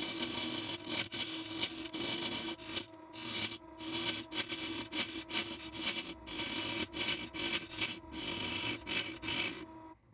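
Wood lathe running with a steady hum while a hand-held gouge cuts a spinning wild olive blank, a rough scraping hiss of shavings coming off in repeated strokes with short pauses. The cutting and the motor hum stop just before the end.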